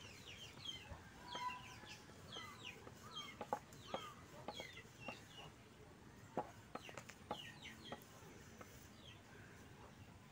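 Faint clucking and chirping of chickens, dying away about eight seconds in, with a few sharp knocks from rolling out roti dough on a round board.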